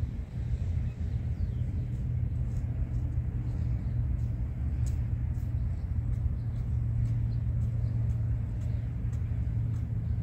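A steady low rumble runs throughout. From about two seconds in come many faint, light ticks and scrapes of a hand hoe chopping into dry soil.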